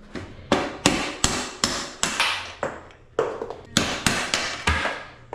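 A hand tool striking a bicycle part during a repair: about a dozen quick hammer blows in a rough rhythm, each with a short ring.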